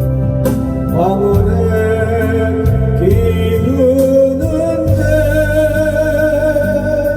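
A Korean ballad sung over a backing track of keyboard and bass. The voice rises through several notes, then holds one long note with vibrato in the second half.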